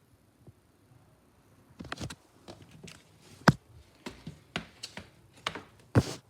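Irregular clicks, taps and knocks of tools and metal parts being handled while working on a gas furnace, with sharper knocks about two, three and a half and six seconds in.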